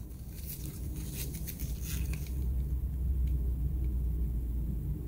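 A low rumble that swells about halfway through, with faint clicks and rustles from a plastic battery charger and its cord being handled in gloved hands.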